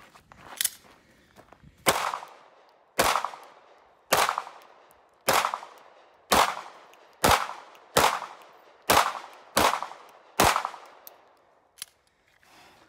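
Ten pistol shots from a Sig P365 fired in a steady string, about one a second, each followed by a short fading echo.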